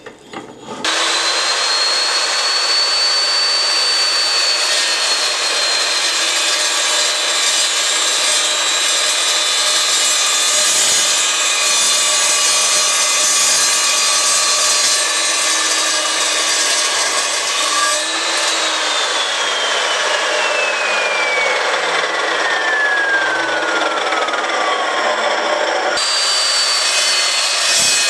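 Evolution S355CPSL cold-cut metal chop saw running with a steady high whine while its blade cuts through square steel tubing, with a constant scraping rasp of the cut. About two-thirds in the whine falls steadily in pitch as the motor winds down, and near the end the saw is running again at full speed.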